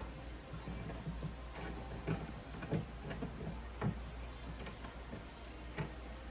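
Irregular light clicks and taps of a cut piece of plastic being handled and bent by hand to fit the catcher's corner, over a steady low hum.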